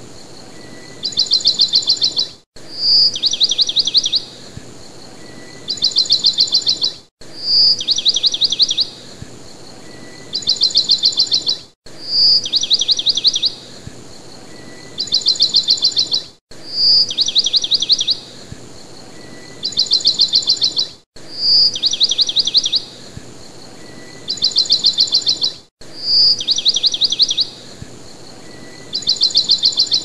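A short bird-song recording looped over and over, about every four and a half seconds: one clear high note running into a fast trill, then a second trill. Each repeat ends in a brief dropout, and a steady hiss of rain runs beneath the song.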